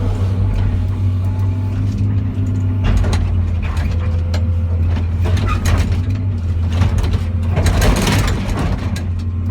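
Excavator's diesel engine running steadily, with irregular metal clanks and crunches as it tears into a forklift, and a longer grinding crunch near the end.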